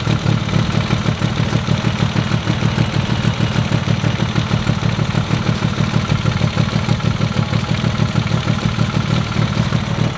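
Mitsubishi Lancer Evolution IX's turbocharged 4G63 inline-four idling steadily, with the tick that came on along with a 30–40 psi compression loss in cylinder 1 after a spark plug melted. The owner hopes it is a valve slightly bent or nicked by a piece of the plug.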